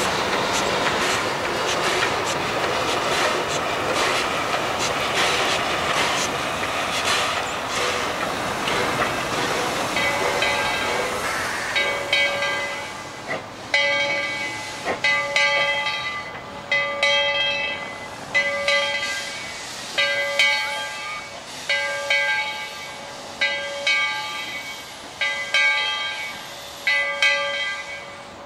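Steam train running with wheels clattering over rail joints, then the locomotive's bell starts ringing about ten seconds in, one ringing stroke roughly every second and a half as the running noise dies down.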